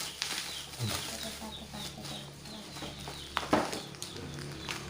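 Packaging being handled and torn open by hand: a string of crackles and rustles with one sharp crack about three and a half seconds in.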